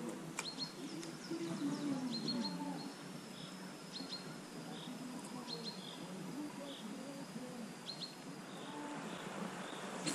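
Forest birds calling: short high chirps, often in pairs, every second or two, over a thin high whistle held for several seconds.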